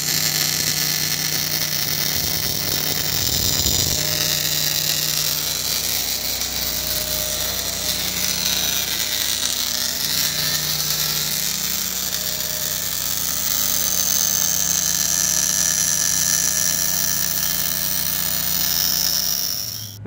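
Automatic bore welder laying a MIG weld bead around the inside of a worn backhoe pin bore, building it up for re-boring: a steady arc hiss with a small motor's whine underneath, unbroken until it cuts off at the end.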